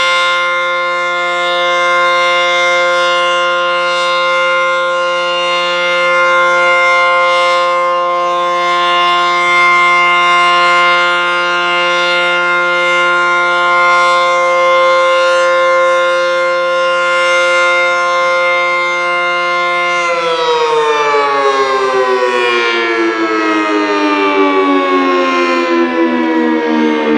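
ACA Banshee 115 electromechanical tornado siren sounding a loud, steady chord of tones. About 20 seconds in it begins to wind down, its pitch falling steadily.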